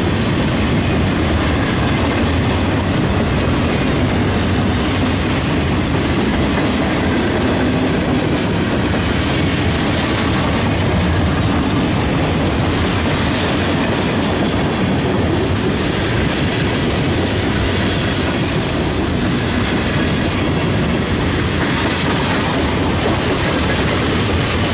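Freight train of boxcars and tank cars rolling past close by: the steady, loud rumble and clatter of steel wheels on the rails.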